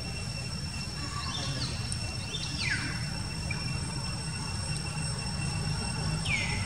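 Outdoor ambience: a steady low rumble and a faint steady high whine, with three short falling whistle-like calls, about a second in, near three seconds and near the end.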